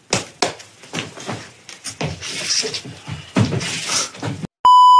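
A run of irregular knocks and clatter with some hiss, which cuts off about four and a half seconds in. A loud, steady electronic beep starts just before the end.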